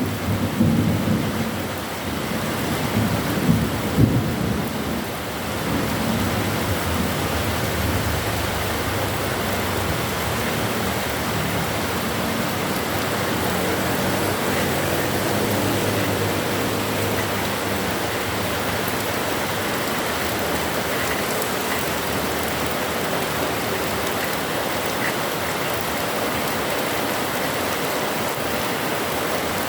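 Heavy rain pouring steadily, with thunder rumbling in the first few seconds before only the rain remains.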